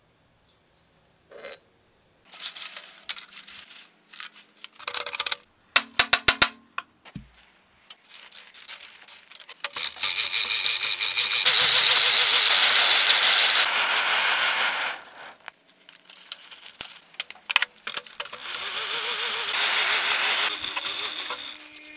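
Lumps of forge coal clattering and clinking onto a steel firepan, with a quick run of sharp clicks. Then a steady rushing hiss comes twice, for about five seconds and then about three, as the coal fire is lit and catches.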